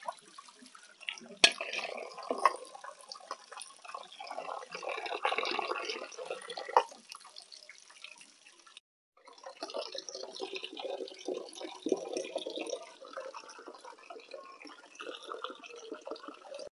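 Water running from a tap and splashing, with a few sharp knocks. It breaks off briefly a little past halfway, then carries on.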